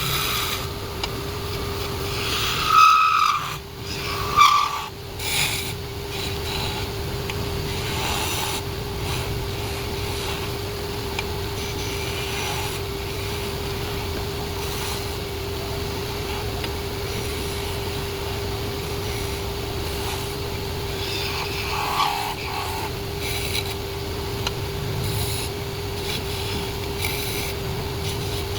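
Wood lathe running with a steady motor hum while the spinning wood is worked, giving a continuous rasping, rubbing sound. It gets louder and sharper a few times in the first five seconds.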